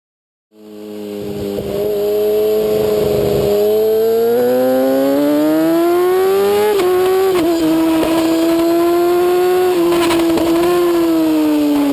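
Sport motorcycle engine running hard on a race track, fading in, then its pitch climbing steadily under acceleration. A sharp dip in pitch comes about seven seconds in, then it holds high revs with small dips and eases off near the end.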